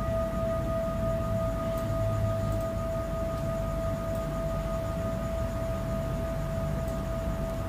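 Singing bowl sounding one steady, sustained tone with a fainter higher overtone, over a low rumble.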